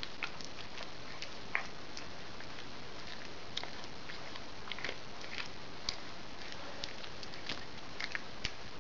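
A cat chewing and crunching a mouse: irregular small crunches and clicks as it bites through it, over a steady background hiss.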